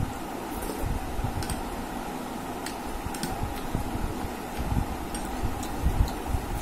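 A person eating rice by hand, close to the microphone: soft chewing and mouth sounds, a spoon scooping raita from a glass bowl, and fingers mixing rice on a plate, heard as scattered small clicks and taps over a steady background hum.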